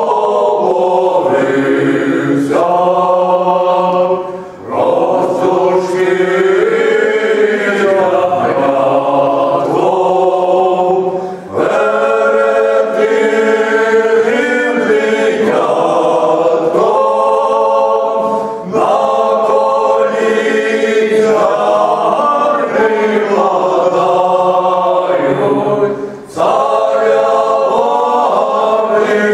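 A male vocal ensemble of seven older men singing a cappella in harmony, in long held phrases with a short breath break about every seven seconds.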